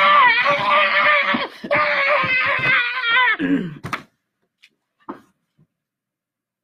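A long, wavering scream held at one high pitch, sliding down into a lower groan and cutting off about four seconds in: a mock death cry after eating the lollipop said to be poisoned. A few faint clicks follow.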